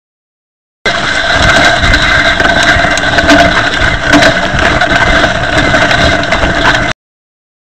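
Mountain bike disc brakes grinding, with grit between the pads and rotors: a steady, harsh grinding with a ringing hum in it, wearing the brake pads down. The sound cuts out completely for about a second at the start and again near the end.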